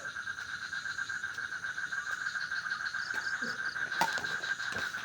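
Steady chorus of trilling animal calls held at one high pitch, with a single sharp click about four seconds in.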